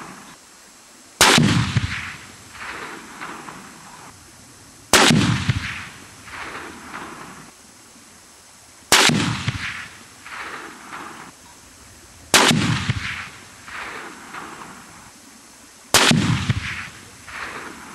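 Five shots from a Tikka M55 bolt-action rifle in .243, fired slowly one after another about four seconds apart. Each sharp report is followed by echoes that roll away and fade over about two seconds.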